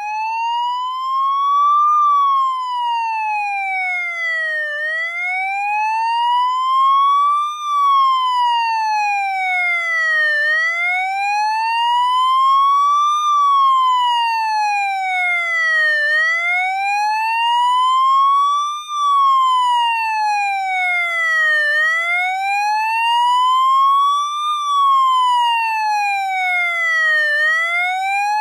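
Electronic siren tone wailing slowly up and down, one smooth rise and fall about every five and a half seconds, steady in loudness.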